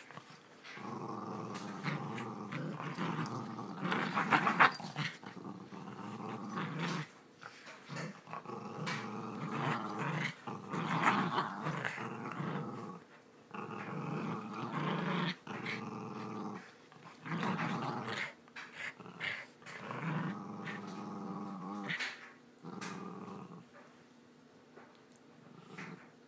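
Miniature pinschers play-growling as they tug a sock between them, in bouts of a few seconds with short breaks, dying down near the end.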